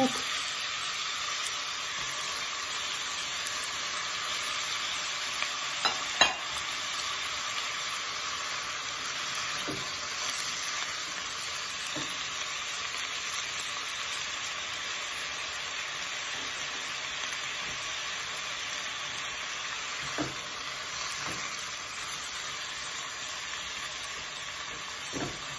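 Beef and diced onion sizzling steadily as they fry in oil in a pot, stirred with a spatula. A few short knocks of the spatula against the pot, the loudest about six seconds in.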